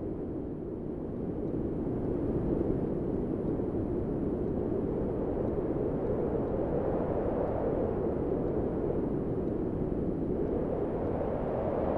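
Synthesised high wind: filtered noise rushing steadily, its pitch slowly rising and falling as the filter cut-off is swept, brightest near the end.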